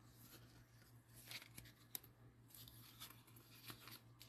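Faint rustling and sliding of trading cards being handled, with a light click about two seconds in.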